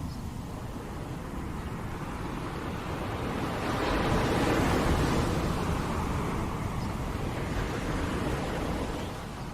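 Ocean waves breaking and washing on a beach: a steady rush of surf that swells to a peak about four seconds in, then slowly eases off.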